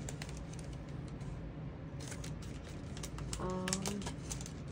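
Clear plastic die packaging being handled, crinkling and clicking in quick irregular ticks that start about two seconds in. A short hummed 'mm' of a voice comes in about three and a half seconds in.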